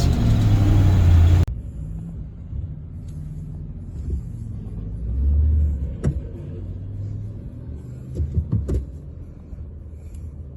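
Low engine and road rumble inside the cab of a moving 1965 Chevy C10 pickup, loud at first, then suddenly muffled and quieter about a second and a half in. A few short knocks and rattles sound about six seconds in and again around eight to nine seconds.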